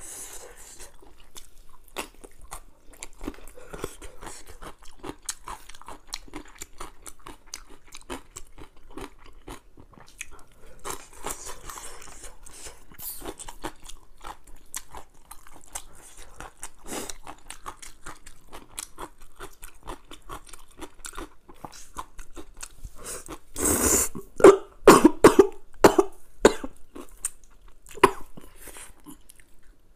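Close-miked eating of crayfish tails and instant noodles: wet chewing and crunching with many small mouth clicks. About three-quarters of the way through comes a run of much louder slurps, noodles being sucked in several quick pulls.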